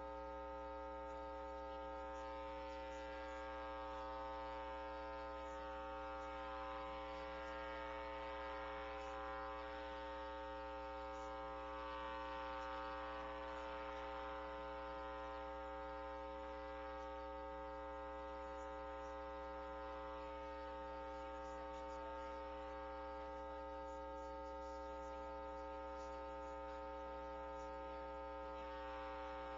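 Steady electrical mains hum: a buzzing drone of several layered tones that does not change, with faint hiss above it.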